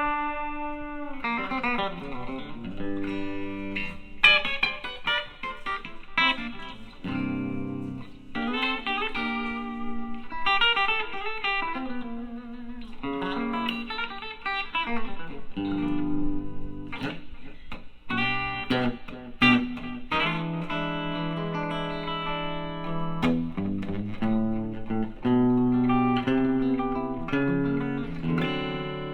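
Palir Titan Telecaster electric guitar playing country-style riffs: quick runs of plucked single notes mixed with chords, with brief pauses between phrases.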